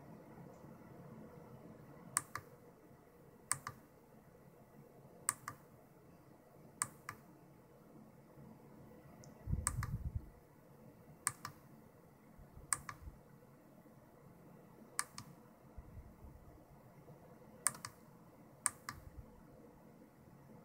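A small breadboard tactile pushbutton clicked by hand about ten times, each press and release making a close pair of sharp clicks, roughly every second and a half. Each press fires a 555 single-shot clock pulse that single-steps a 65C02 CPU. A dull thump sounds just under halfway through.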